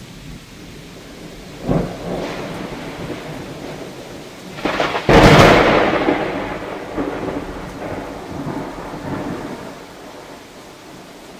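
Heavy rain with two claps of thunder. A smaller one comes about two seconds in; a much louder, sharp crack comes about five seconds in and rolls off into rumbling that fades over several seconds.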